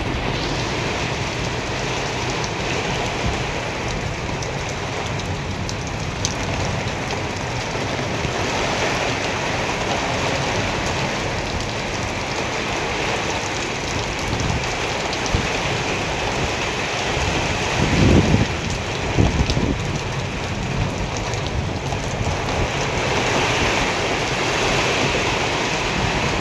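Heavy rain falling steadily, a dense even hiss, with two brief low rumbles about eighteen and nineteen seconds in.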